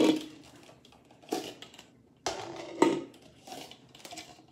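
Red plastic cups clacking as they are pulled off a nested stack and set down, a few sharp plastic knocks followed by lighter taps.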